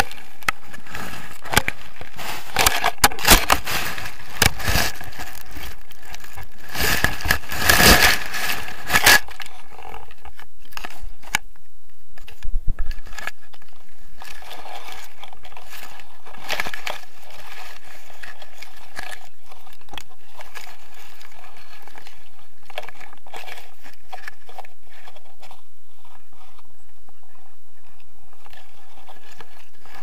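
Camera brushing and scraping through tall grass and weeds: loud crackling rustle for the first nine seconds or so, then only faint, scattered rustles.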